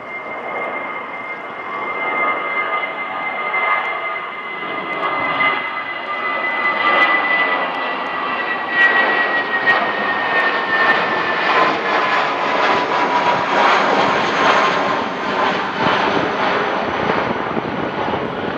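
Twin-engine jet airliner climbing out after takeoff and passing overhead: steady jet engine noise that builds in loudness, with a high engine whine that slowly drops in pitch as it goes by.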